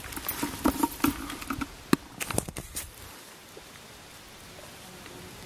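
Rustling and crackling of low bog plants being brushed and handled, with a run of short sharp clicks and snaps in the first three seconds, then a quieter, even hiss.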